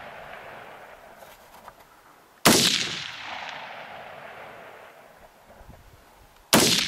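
Two shots from a 5.56 mm AR-15 precision rifle with an 18-inch barrel, about four seconds apart (one about two and a half seconds in, one near the end), each trailing off in a long echo.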